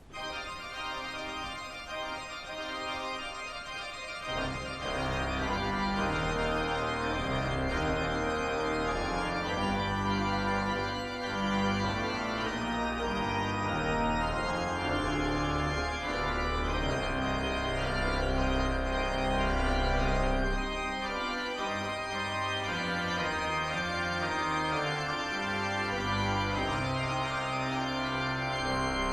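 Organ music begins, with deep bass notes joining about four seconds in, then plays on at a steady level.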